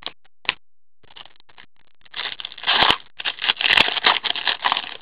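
A trading card pack's wrapper being torn open by hand: crinkling, crackling tearing that starts about two seconds in and keeps going in rapid bursts, after a couple of light clicks at the start.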